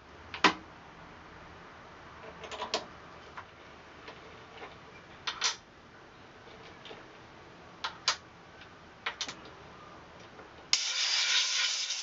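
Sharp metallic clicks and clacks, some in quick pairs, every two or three seconds as a three-jaw lathe chuck is handled. Near the end comes a loud, steady hiss lasting about two seconds.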